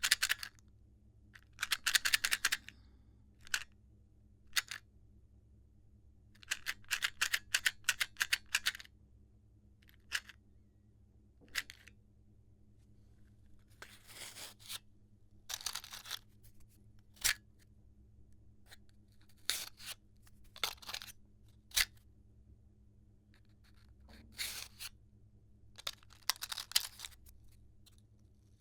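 Matches rattling inside a shaken matchbox, in bursts of quick shakes lasting a second or two, with single clicks and short pauses between.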